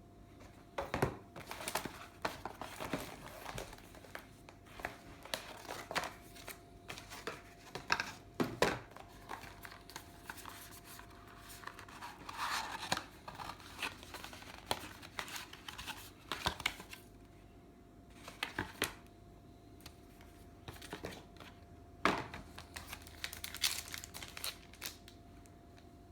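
Keyboard packaging being opened and handled: irregular crinkling and tearing with scattered sharp clicks, and a quieter lull about two-thirds of the way through.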